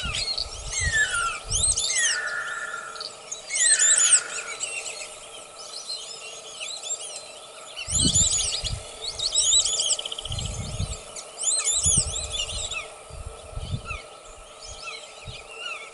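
A flock of white-faced whistling ducks (irerê) calling: clusters of quick, high whistled notes coming in bursts every second or two, with a few lower, falling whistles in the first four seconds.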